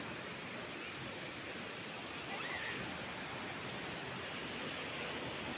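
Sea surf washing onto the beach: a steady rushing noise.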